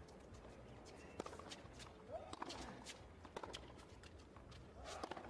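Tennis ball on a hard court: a few sharp ball bounces and racket strikes, spaced a second or more apart, over a faint low crowd hum.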